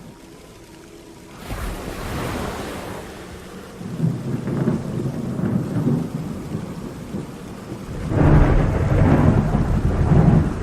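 Thunder rolling over steady rain. After a quiet first second and a half the rumble builds in waves and is loudest in the last couple of seconds.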